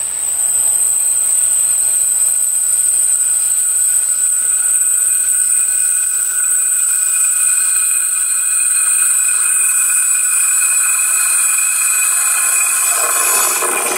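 Rails ringing with a steady high-pitched singing as an approaching freight train's wheels set them vibrating, heard from right at the track. In the last second a deeper rumble comes in as the class 232 diesel locomotive draws near.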